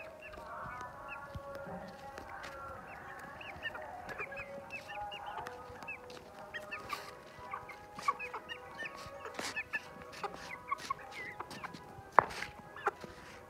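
Aseel chickens clucking and calling, with many short high chirps scattered throughout and occasional clicks, one loud sharp click about twelve seconds in.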